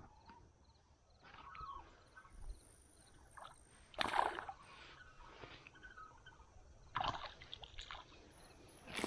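Water sloshing and splashing around a kayak in short, irregular swishes, the loudest about four seconds in.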